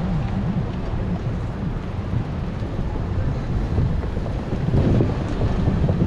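Wind buffeting the microphone: a loud, uneven low rumble that swells in gusts, strongest about five seconds in.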